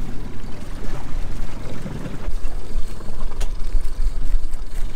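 Wind buffeting the microphone on an open boat, a loud uneven rumble, with a single sharp click about three and a half seconds in.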